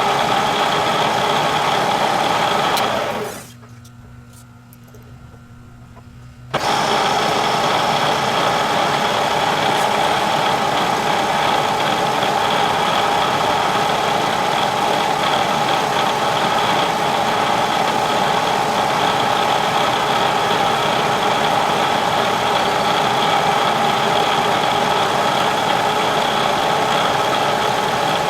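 Bridgeport milling machine running with a steady mechanical hum and whine from its spindle drive. A few seconds in, the sound dies away, then comes back abruptly and runs steadily on.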